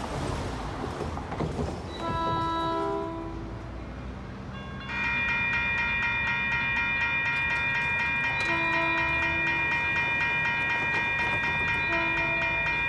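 A bus passes, then a distant train horn sounds a long blast about two seconds in. From about five seconds in the crossing warning bells ring steadily with a fast, even striking, while the horn goes on in long, long, short blasts, the pattern sounded for a grade crossing.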